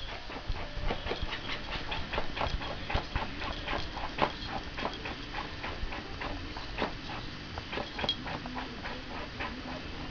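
A cat biting and clawing at a small fabric cushion toy on a wooden floor: irregular soft clicks and scratches, a few each second.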